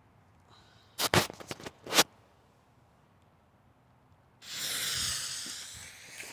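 A few sharp clicks of a disposable lighter being struck. About four seconds in, a sudden loud hiss of the fuse and the sugar-rocket-fuel gerb with 1% aluminium powder catching and spraying sparks, slowly fading.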